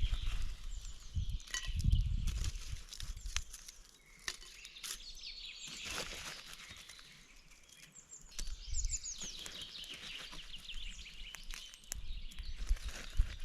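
Outdoor ambience with small birds chirping in quick clusters of short sweeping notes, twice around the middle. Scattered clicks run throughout, with low rumbling thuds near the start and again near the end.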